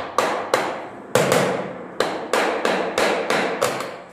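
Small claw hammer knocking on the edge of a laminate floor plank to tap it into the click joint of the neighbouring plank: about a dozen sharp knocks at an uneven pace, each ringing briefly.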